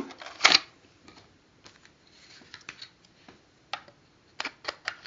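View-Master viewer and cardboard reel being handled as the reel is changed. A sharp click comes about half a second in, then scattered light clicks.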